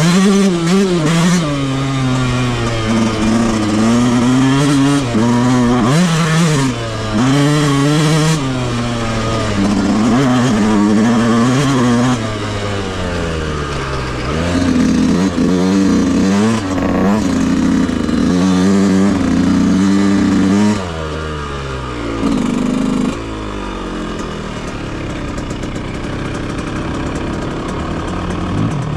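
Yamaha YZ125 two-stroke dirt bike engine under hard riding, its pitch climbing and dropping again and again as the throttle is opened and shut through the gears. About 21 seconds in it eases off to a lower, quieter and steadier run, with one short blip of throttle.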